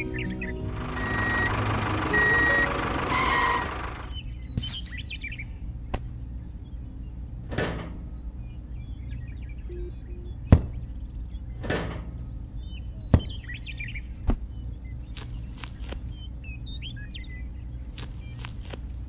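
A loud hiss that stops about four seconds in, then birds chirping over a steady low hum, with scattered sharp clicks and knocks as a miniature homemade water pump is handled.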